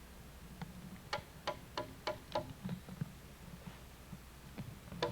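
A quick run of five sharp knocks, about three a second, then one louder knock near the end: hard strikes on wood during log work.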